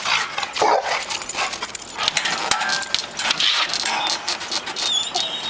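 A red-nose pit bull vocalizing as it leaps at and tugs on a springpole toy, with many sharp clicks and knocks from the pole and the scuffle.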